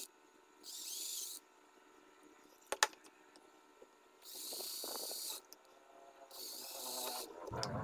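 Cordless drill driving small screws into a plastic box, its motor whining in three short bursts, with a sharp click a little under three seconds in.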